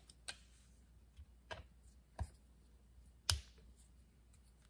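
Scattered sharp clicks and taps of a T27 Torx driver against the oiler screws and housing of an Echo CS-590 chainsaw as the screws are taken out, about four in all, the loudest a little past three seconds in.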